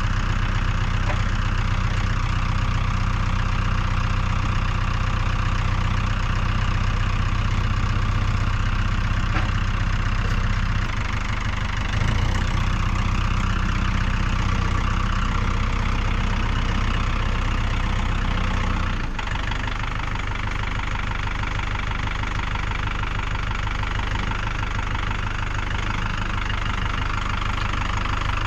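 An engine idling steadily, with its note shifting about 11 seconds in and dropping slightly in level about 19 seconds in.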